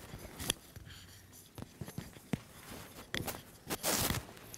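Clip-on microphone handling noise: scattered knocks and clicks, then a louder rubbing rustle about four seconds in as it is fastened to a jacket lapel.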